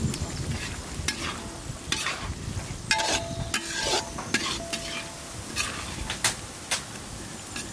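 Perforated metal spatula stirring egg masala curry in a kadai, clicking and scraping against the pan over and over, while the thick gravy sizzles.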